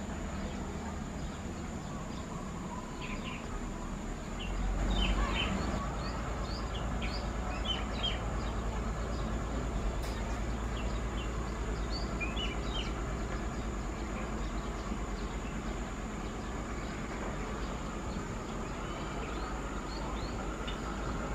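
Small crawler tractor's diesel engine running at a distance as a low rumble, growing louder about five seconds in, with many small birds chirping over it.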